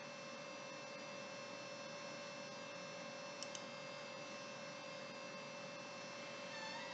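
Faint steady electrical hum over low room noise, with two tiny clicks about three and a half seconds in.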